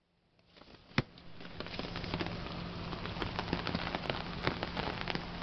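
Rain pattering on an open umbrella's fabric canopy: a dense scatter of drop ticks that fades in over the first second or so. About a second in, one sharp snap as the umbrella is pushed open.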